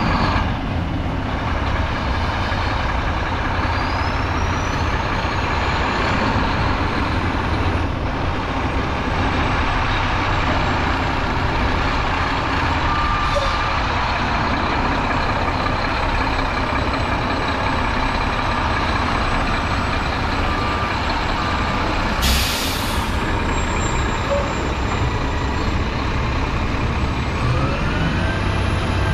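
Mack GU713 quad-axle dump truck's diesel engine idling steadily, with one short hiss of air from its air system about three-quarters of the way through.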